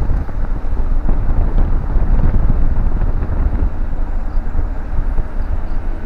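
Steady low rumble of wind on the microphone mixed with the noise of a moving vehicle.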